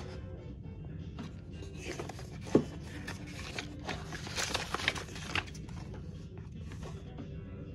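A small paper gift box being handled and opened: one sharp knock about two and a half seconds in, then a run of scratchy rustling and scraping of paper and wrappers. Quiet background music plays throughout.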